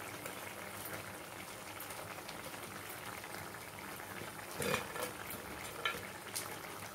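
Tamarind-based vada curry bubbling at a steady boil in a pan, with a few short knocks about two-thirds of the way through.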